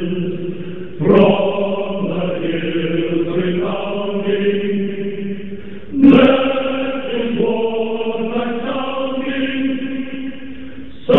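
Choir singing long held chords, with a new, louder chord coming in about a second in, again about six seconds in, and once more at the very end.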